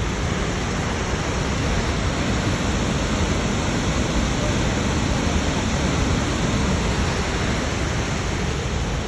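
Steady, loud rushing roar of Snoqualmie Falls, an unbroken wash of falling water.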